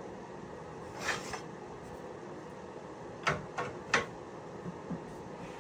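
Light handling noises from taped wood pieces being worked by hand: a short rustle about a second in, then three quick light taps a little past the middle and a faint one near the end.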